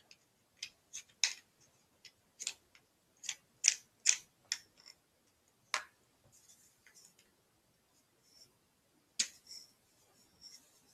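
Sharp plastic clicks and taps from handling a camcorder and its detachable handle grip while fitting the handle: about a dozen in the first six seconds, then faint rustling and one more sharp click about nine seconds in.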